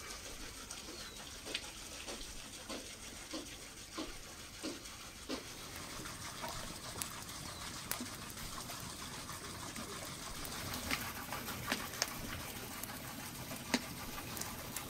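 Knife chopping ingredients on a cutting board: a run of light chops a little over half a second apart, then scattered single taps.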